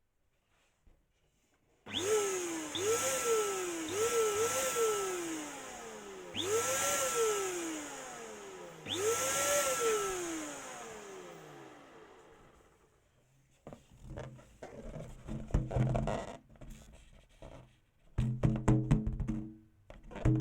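Short playful music cue made of repeated sliding whistle-like notes that rise and fall, fading out about halfway through. It is followed by a run of irregular short rubbing and knocking sounds.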